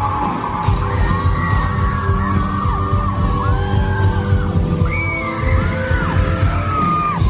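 Live rock band playing loud in a hall: a drum kit driving a steady beat under electric guitar, with high notes sliding up and down over the top.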